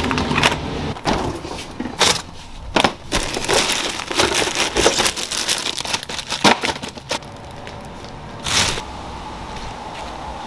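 A plastic bag of romaine lettuce hearts crinkling as it is handled and taken from a refrigerator, among sharp clicks and knocks of a door knob and doors being opened. The handling noises come in quick bursts for about seven seconds, then one more burst near the end.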